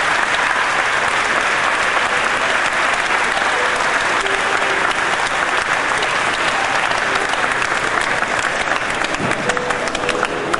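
A large crowd applauding steadily, many hands clapping at once, easing slightly near the end.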